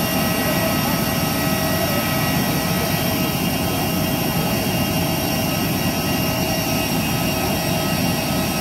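Airbus A320 turbine running steadily on the ramp: a constant rushing roar with several high, steady whining tones over it.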